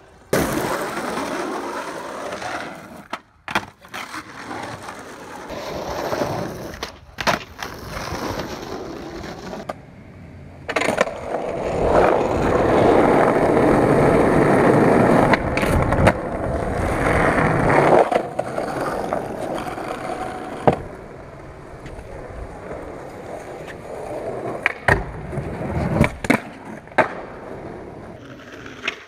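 Skateboard wheels rolling over concrete and asphalt, with sharp clacks of the board being popped and landed several times. The rolling is loudest in a long stretch around the middle.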